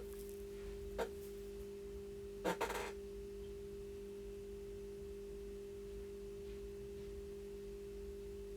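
Steady hum made of two constant tones, one low and one a little higher. It is broken by a single click about a second in and a short clatter of clicks about two and a half seconds in.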